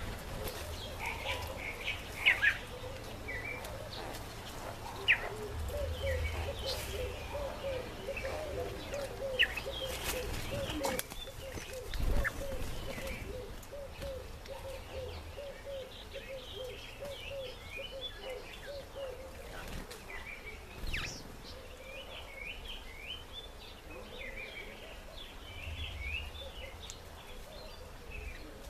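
Birds calling: a long run of short, low notes about two a second that stops about two-thirds of the way in, over scattered higher chirps that grow busier toward the end, with a few sharp clicks.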